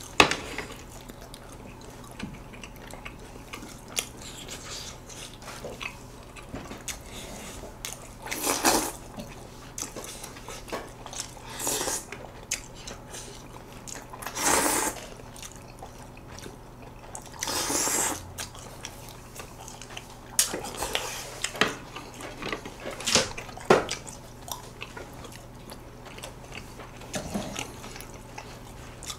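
Close-miked eating of Chinese noodle dishes: wet chewing and biting, broken every few seconds by short, loud slurps of noodles, about half a dozen in all.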